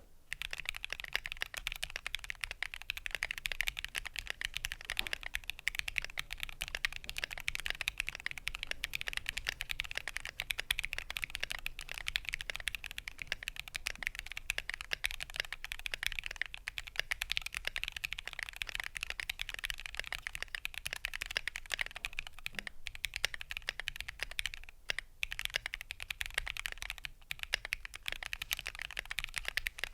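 Fast, continuous typing on a modded Keychron Q2 mechanical keyboard fitted with Gateron Cap V2 switches, PE foam and kilmat dampening, with no case ping. Dense keystrokes with a couple of brief pauses about three-quarters of the way through.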